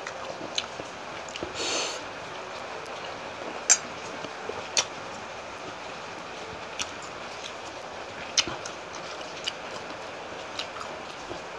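Close-miked eating sounds: a person chewing, with scattered sharp mouth clicks and smacks and a brief hiss about two seconds in.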